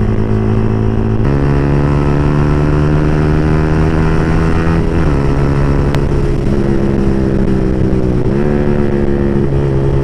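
Yamaha R15 v3's single-cylinder engine through an open aftermarket exhaust, heard on board while riding. The engine note steps up in pitch about a second in, drops around five seconds, and rises again a little after eight seconds as the rider works the throttle and gears.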